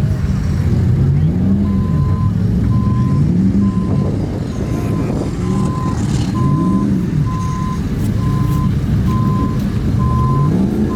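An off-road vehicle engine revving up and down in repeated swells every couple of seconds. From about two seconds in, a reversing alarm beeps steadily at about one and a half beeps a second.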